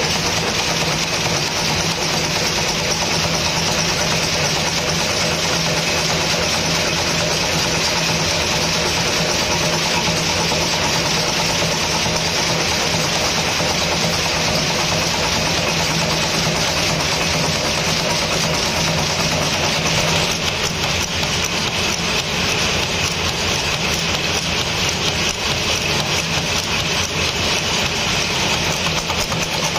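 Screw-making machine running at speed: a steady, rapid metallic clatter of its reciprocating dies and slides, over the constant hum of its drive.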